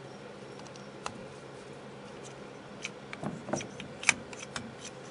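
Small metal carburetor parts clicking and tapping as they are handled and fitted during reassembly: a single click about a second in, then a run of light taps in the second half, the sharpest about four seconds in, over a faint steady hum.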